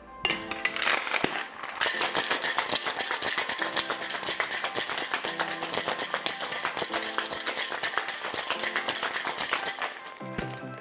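Ice rattling inside a metal cocktail shaker tin as a drink is shaken hard: a fast, steady clatter that starts just after the beginning and stops shortly before the end.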